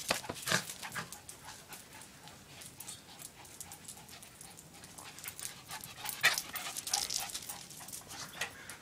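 A Lhasa apso puppy and another small dog panting and scuffling as they play-wrestle, with quick rustling and scraping. The scuffling is loudest in the first second and again around six seconds in.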